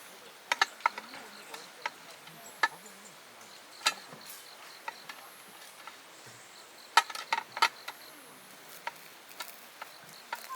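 Sharp clicks and light knocks at irregular intervals, a cluster of them about half a second in and another around seven seconds in, over faint steady insect buzzing.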